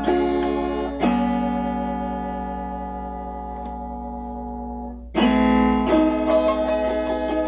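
Autoharp being strummed. A chord is struck about a second in and rings, slowly fading for about four seconds. Fresh strummed chords come in about five seconds in.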